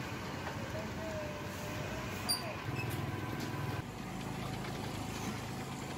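Street traffic: motor scooter engines running past over a steady background din, the low engine hum dropping away about four seconds in.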